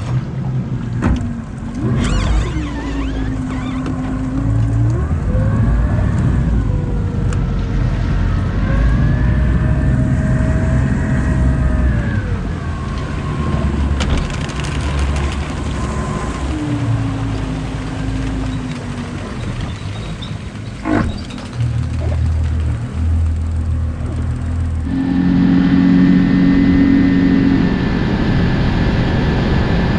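Boat's outboard motor running, its pitch rising and falling as the throttle is worked while pulling away from the ramp. Near the end it settles into a steady higher drone at cruising speed.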